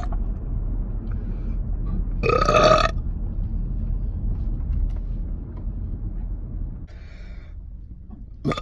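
A single loud, deliberate burp from a person about two seconds in, lasting under a second, its pitch rising as it goes. A low background rumble runs underneath and drops away about seven seconds in.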